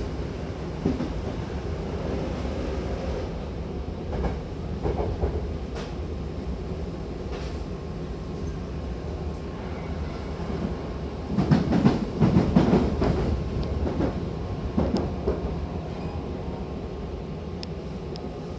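Hankyu commuter train running between stations, heard from inside the car. There is a steady rumble with scattered clicks of the wheels over the rails, and a louder run of clacking about two-thirds of the way through.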